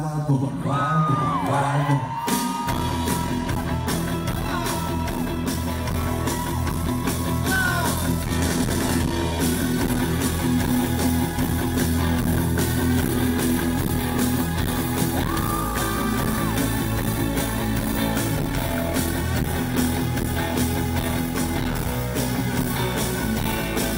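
Live rock band kicking into a song: a loud full-band groove with bass, drums and electric guitar comes in about two and a half seconds in and carries on steadily. A voice yells over it at the start and again about fifteen seconds in.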